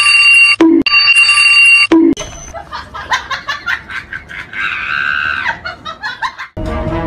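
An alarm clock ringing loudly in two bursts of about a second each, followed by a run of quick clicks and a short warbling tone, with music starting near the end.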